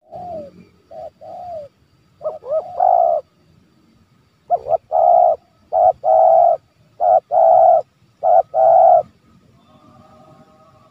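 Spotted dove cooing: repeated phrases of one or two short coos followed by a longer coo, about a second apart, stopping about nine seconds in. This is the dove's challenging 'menekan' call, used to provoke wild doves into coming close.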